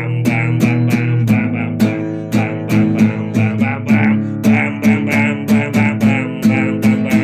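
Guitar strumming chords in a steady rhythm, about three strums a second, with no singing.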